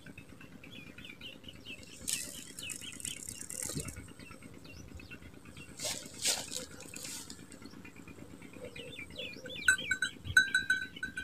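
Small birds chirping steadily, with two bursts of rustling or swishing noise, and a brief rattling jingle of quick ticks near the end.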